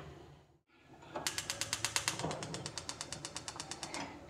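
Gas hob's spark igniter clicking rapidly, about nine clicks a second, as a burner is lit; the clicking stops shortly before the end.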